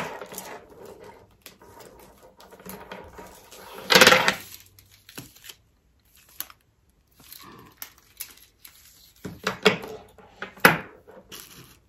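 Metal swivel clips on a leather bag strap clinking and jangling as the strap is unwrapped and handled, with light rustling of packaging. There is a louder burst of handling noise about four seconds in.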